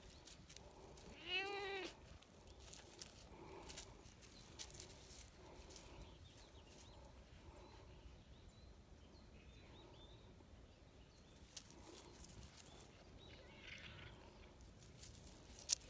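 Black cat meowing once about a second in, a short call that rises and falls in pitch. Scattered soft clicks follow, and there is one sharp click near the end.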